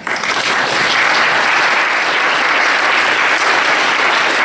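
Audience applauding: dense, steady clapping that starts suddenly and keeps going.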